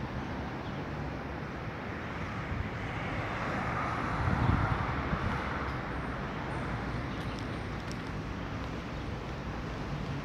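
Road traffic noise, swelling as a vehicle passes about four to five seconds in.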